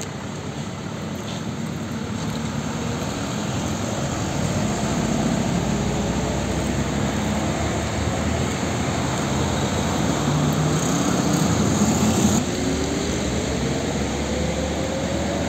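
Road traffic dominated by diesel truck engines as trucks pass at low speed, the noise growing louder through the first half. About twelve seconds in it drops suddenly, and then one engine revs up steadily as a truck accelerates away.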